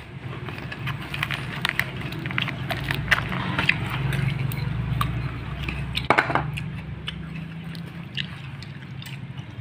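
Light clicks and taps of thin wooden sticks, used as chopsticks, against plastic bowls as food is picked up. Underneath runs a low hum that grows louder through the middle and then fades.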